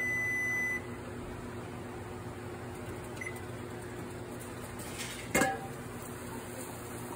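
Frigidaire electric range's timer alarm, a single steady high beep at zero that cuts off about a second in, marking the end of the canner's timed run. A steady low hum continues underneath, with a faint short blip around three seconds in and a brief knock about five seconds in as the enamel canner lid is handled.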